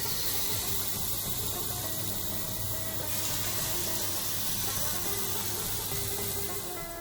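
Tandoori-marinated chicken sizzling as it grills, a steady hiss that is brighter over the first few seconds, under background music.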